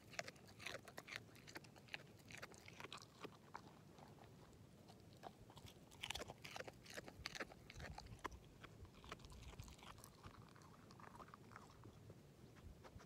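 English setter chewing and crunching a piece of carrot, faint irregular crunches, busiest at the start and again about six seconds in, then thinning out.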